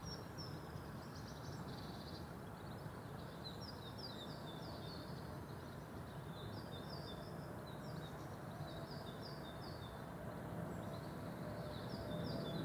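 Small songbirds singing, short high chirping phrases repeated over and over, over a steady low background hum.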